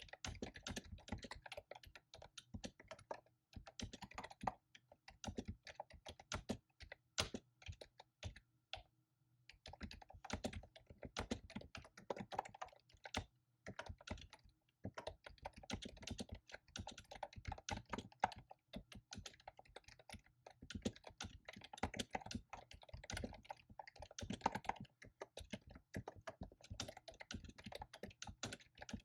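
Fast typing on a computer keyboard: a dense, irregular run of key clicks, with a pause of about a second and a half roughly a third of the way through.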